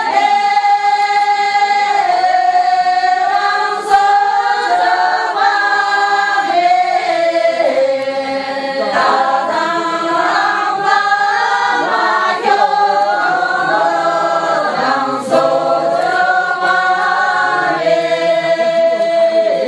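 A group of women singing together unaccompanied, all on one melody in long held notes that step up and down.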